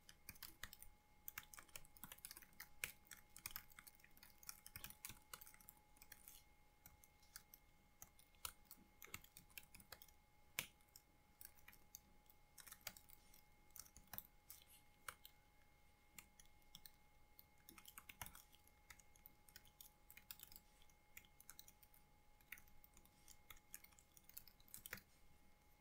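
Faint computer keyboard typing: irregular key clicks in short runs with pauses, over a faint steady tone.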